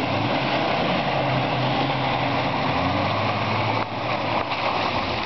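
Jeep Wrangler's engine running at low speed as it crawls through a muddy water hole, its note dropping a little about halfway through.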